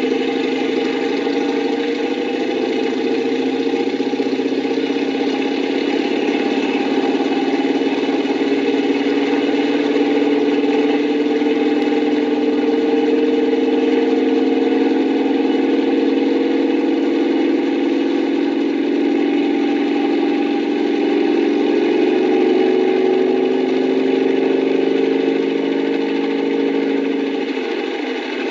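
An engine running steadily at a low, even speed, its pitch wavering only slightly; it stops near the end.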